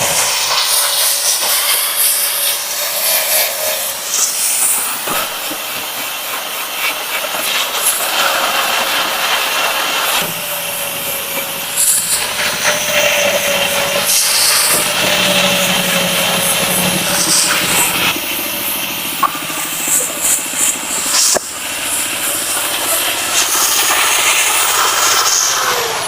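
Electric grinder running and grinding the fresh weld on a steel hammer, a steady motor whine under a harsh hiss of metal being ground. The whine wavers as the work is pressed on.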